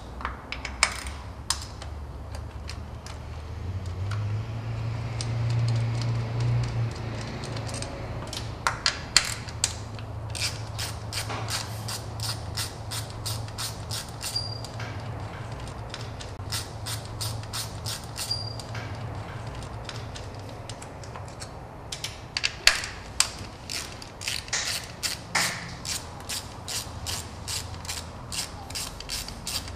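Hand ratchet clicking in quick runs of strokes as the 10 mm nuts holding the ignition coils on a BMW Z3's inline-six engine are loosened, over a steady low hum.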